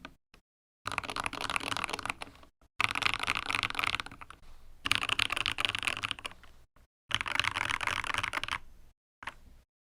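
Fast typing on a GK61 mechanical keyboard with lubed and filmed Gateron Optical Yellow linear switches and YMDK keycaps: four dense runs of keystrokes, each a second or two long with short pauses between, then a few last keys near the end.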